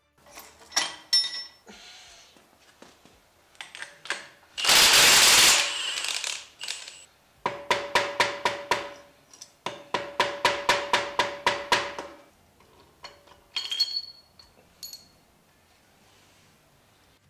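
Metal work on a bare GM 14-bolt axle housing while the carrier and pinion are removed: scattered clanks, a loud hiss-like burst lasting about a second, then two runs of quick ringing metal strikes, about five a second, followed by a few light clinks.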